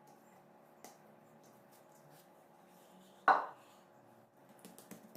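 Kitchen dishes and utensils being handled on a work surface: faint clicks and taps, and one sharp loud clatter about three seconds in.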